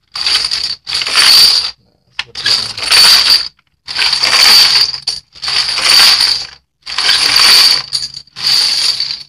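Freshly printed, dried metal crown bottle caps stripped by hand off perforated drying boards and showering into a plastic basin of caps. About seven loud jingling clatters of metal on metal, roughly one every second or so.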